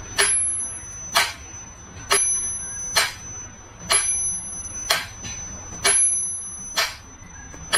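A sharp strike about once a second, nine in all, each followed by a thin, high ringing tone that fades before the next.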